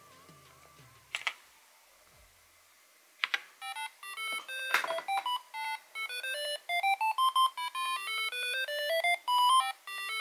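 Epson HX-20's built-in speaker playing a BASIC SOUND-command program: short electronic beeps stepping up in pitch, note by note, in repeated rising runs of about four or five notes a second. Two keyboard key clicks come before it; the beeps start about three and a half seconds in.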